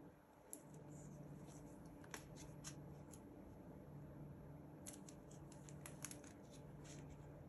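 Faint handling noises: scattered soft clicks and rustles, bunched into two clusters, over a low on-and-off hum.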